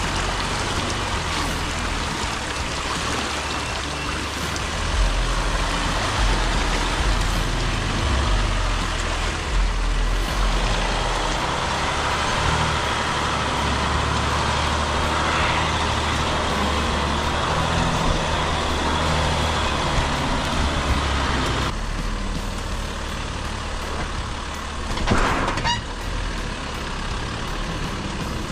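Off-road Jeep on large mud tyres crawling at low speed along a muddy trail, its engine running steadily under light throttle with tyre and mud noise. There is a brief louder knock or clatter about 25 seconds in.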